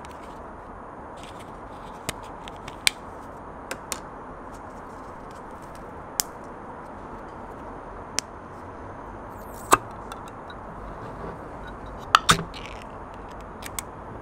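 Short, sharp plastic clicks and taps as a folding plastic spoon and a plastic cap are handled. Near the end come louder metallic snaps as the ring-pull lid of a tin can is cracked open and peeled back. Under it all is a steady background hiss.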